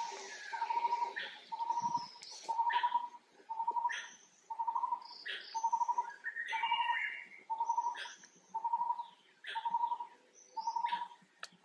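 A bird repeating one short, even note about every three quarters of a second, with other birds chirping higher in the background.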